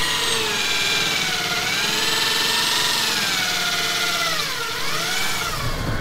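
Cordless drill running a hole saw through acrylic sheet, wetted with water. The motor's whine wavers in pitch, dipping about three-quarters of the way through and picking up again.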